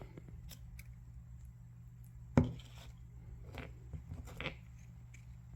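Cut agate halves being handled and set down: a sharp knock about two and a half seconds in, then a few lighter clicks, over a steady low hum.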